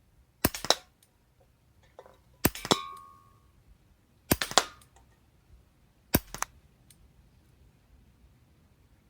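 Umarex Beretta 92 CO2 air pistol (.177, 12-gram CO2 cartridge) fired four times at a steady pace, each shot a sharp crack followed closely by a second crack. After the second shot comes a short metallic ring.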